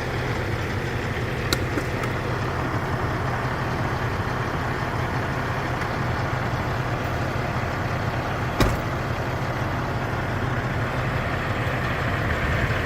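Semi truck's diesel engine idling steadily, with two short sharp clicks, one early and one about two-thirds of the way through.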